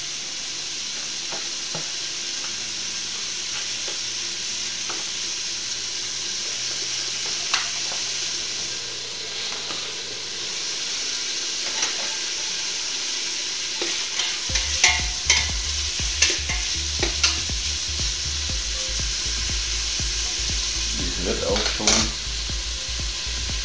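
Diced bacon sizzling steadily in a little oil in the bottom of a pressure cooker pot. About two-thirds in, a utensil begins stirring and scraping, with sharp clicks, and a low hum comes in underneath.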